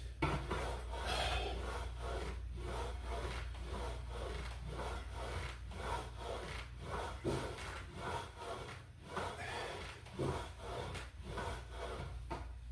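Flybird ab crunch machine rubbing and creaking in a quick rhythm as crunches are done on it, with a few sharper knocks.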